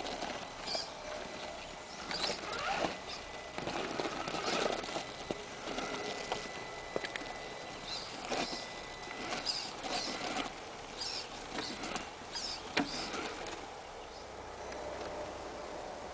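Irregular knocks, scrapes and crunches of a radio-controlled rock crawler's tyres and chassis working over rock, with a brief thin whine about six to seven seconds in.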